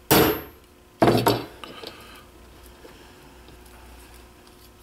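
A ball-peen hammer strikes a punch sharply, driving the cross pin out of a Marlin Model 60 .22 rifle's bolt, with a metallic ring. A second sharp metal impact follows about a second later, then a few light clinks of small parts.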